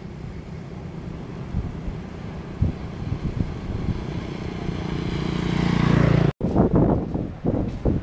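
Motorbike engine and tyre noise on a road, a steady hum that grows louder as the bike comes closer, then cuts off suddenly. After that, irregular low buffeting of wind on the microphone.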